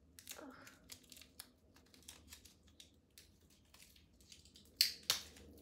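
Fingers picking at a small tag on a silk twilly scarf: soft rustling and small clicks, then two sharp rips near the end as the tag is torn off.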